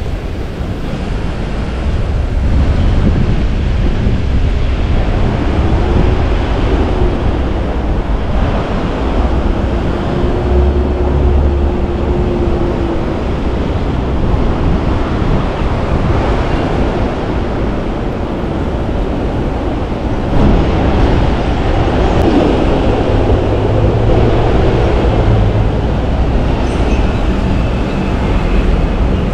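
City street traffic noise: a steady rumble of passing vehicles, with an engine or motor whine that rises and falls in pitch for a few seconds near the middle.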